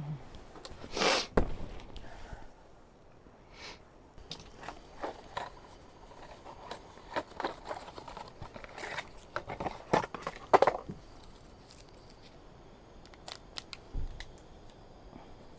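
Irregular clicks, taps and rustles of objects being handled, with a loud rustle about a second in and a busy run of clicks in the middle.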